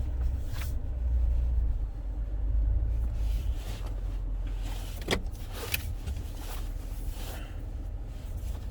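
Low steady rumble of a GMC Sierra 3500 AT4 pickup creeping in reverse through snow in four-wheel drive, heard inside the cab, with a few short clicks and scrapes about halfway through.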